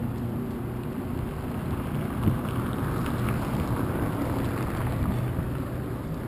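Outdoor city ambience: a steady low rumble of street traffic, with a swell of wider noise through the middle and a single short knock a little over two seconds in.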